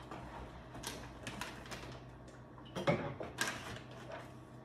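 Light clicks and taps of bottles and jars being handled on a kitchen shelf, a few scattered knocks over a faint steady low hum.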